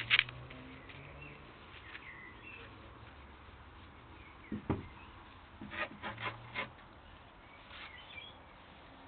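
Ferrets scratching and scrabbling in lawn soil and grass as they dig, heard as short bursts of scratchy rustling, with a few sharp clicks at the very start and faint bird chirps behind.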